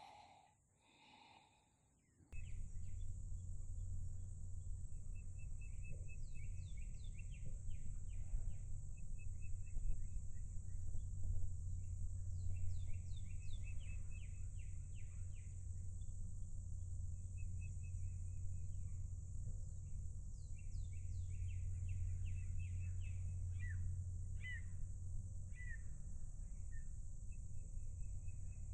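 Songbirds singing in the woods, with repeated chirps and short trills coming and going, over a steady low hum and a steady high insect-like drone. The sound jumps in about two seconds in, after a short quiet stretch.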